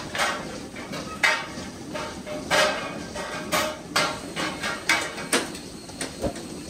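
Milking-parlour equipment clanking: sharp metallic knocks, each ringing briefly, roughly once a second, over a steady machine noise.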